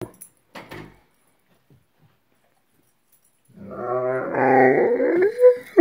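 Great Dane vocalizing: after a couple of faint short sounds, a long, low, wavering grumbling vocalization starts about three and a half seconds in and rises in pitch near the end. It is the dog's insistent call to wake its owner.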